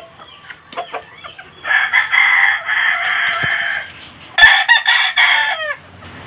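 Rooster crowing twice: a long crow about two seconds in and a shorter, louder one about four and a half seconds in that trails off in falling notes, with soft clucking before the first.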